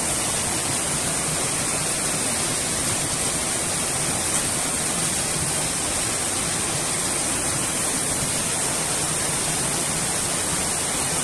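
Steady rush of a small waterfall pouring into a stream pool.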